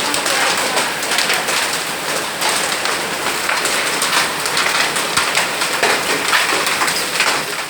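Hailstorm: hailstones and rain pelting down, a loud, dense clatter of countless small impacts with no let-up.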